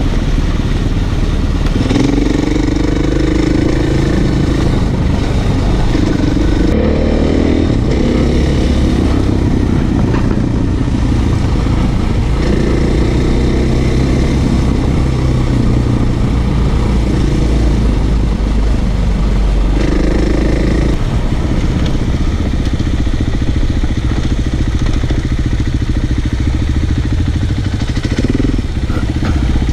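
Off-road motorcycle engine running under load, its pitch rising and falling several times as the throttle is opened and closed over the terrain.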